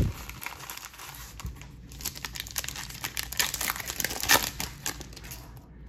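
Foil trading-card pack wrapper crinkling in the hands and being torn open along its crimped seal: a run of dense crackles, with a sharper crackle a little past four seconds in.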